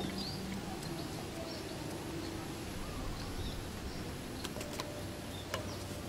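Faint bird chirps over a steady outdoor background, with a few light clicks in the second half.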